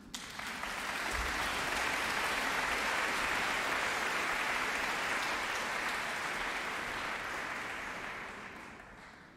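Audience applause. It starts suddenly, builds over the first couple of seconds, holds steady, and dies away near the end.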